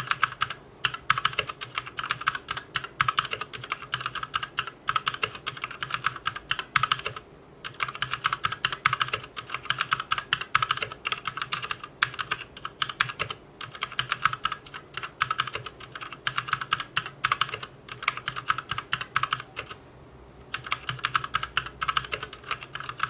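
Fast typing on a HyperX Alloy FPS RGB mechanical keyboard with Kailh Silver Speed linear switches: quick runs of keystrokes at a moderate noise level, pausing briefly about seven and about twenty seconds in.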